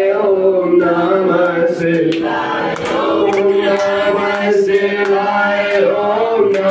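A group of voices chanting a Hindu devotional chant together, holding long notes with no breaks.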